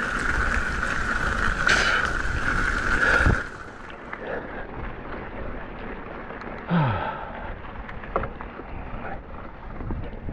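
Specialized Fuse hardtail mountain bike on a wet trail in the rain: tyre and wind noise with a steady high hum. The noise cuts off suddenly about three and a half seconds in, leaving quieter trail noise with a few knocks.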